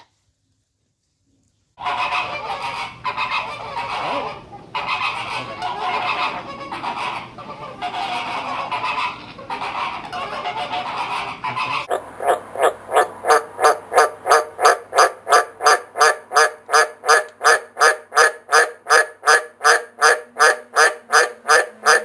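Animal calls: after a moment of silence, a dense run of overlapping, irregular calls, then from about halfway a steady, rapid series of pulsed calls, about three a second.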